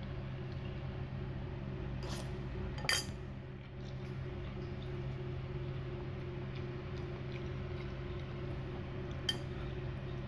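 Metal fork clinking against a ceramic bowl of boiled instant noodles a few times, the loudest clink about three seconds in and another near the end, over a steady low hum.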